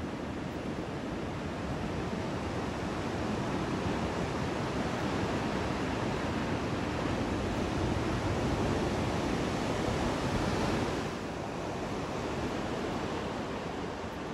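Ocean surf breaking and washing in, a steady rush of water that swells over several seconds and eases back about eleven seconds in.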